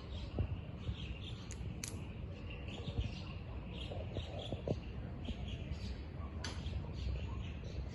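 Many small birds chirping in the morning, short high chirps repeated from several directions throughout, with a few sharper single calls. A steady low rumble runs underneath.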